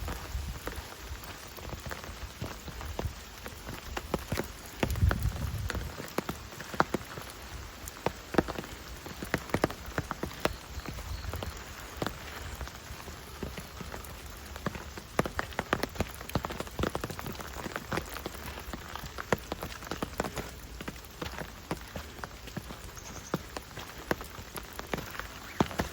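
Rain falling in a forest, with many separate drops pattering and tapping irregularly over a steady hiss. A brief low rumble comes about five seconds in.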